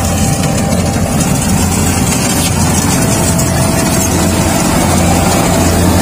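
Rice combine harvester running steadily at work in the field, a loud, unbroken engine hum.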